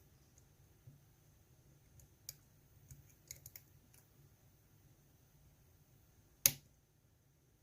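Lock pick working the pins of a GEGE euro cylinder: scattered faint clicks and ticks, then one much louder sharp click about six and a half seconds in.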